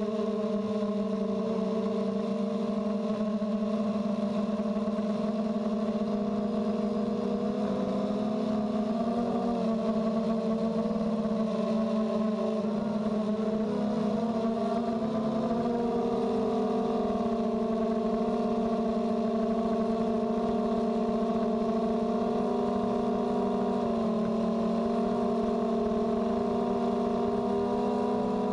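Blade 200 QX quadcopter's electric motors and propellers whining steadily, heard from a GoPro mounted on the copter itself. The pitch shifts up and down for a few seconds around the middle, then settles.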